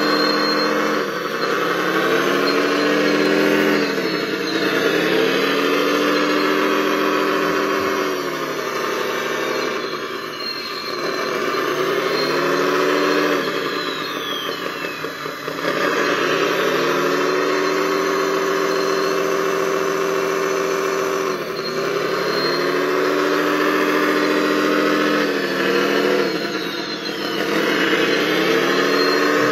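Radio-controlled model wheel loader working in sand, giving a steady engine-like drone whose pitch sags and climbs back about six times, with a faint high whine sweeping over it.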